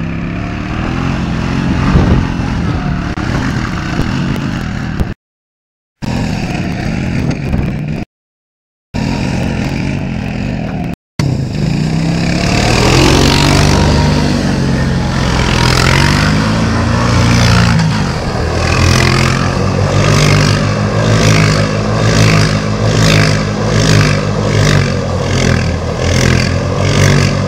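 Quad bike engine revving up and down as the ATV spins on ice, its pitch rising and falling. The sound cuts out completely twice in the first half. In the last several seconds the engine note pulses evenly, about one and a half times a second.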